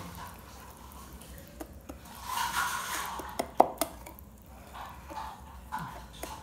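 Wire whisk stirring thin cake batter in a bowl: wet swishing with scattered sharp clicks of the whisk against the bowl, the loudest about three and a half seconds in.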